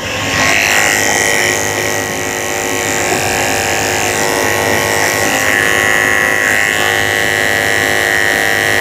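Cordless electric dog clippers fitted with a #30 blade, switched on and running with a steady whine while shaving the pads of a Yorkshire terrier's feet.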